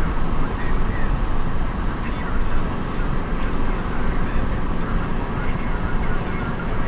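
Steady road noise inside a moving car's cabin: an even, deep rumble of tyres and wind, with a faint thin high whine above it.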